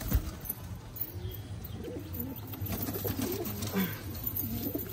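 Domestic pigeons cooing in a loft, low wavering coos that come and go. There is a brief flap of wings right at the start as a pigeon is let go.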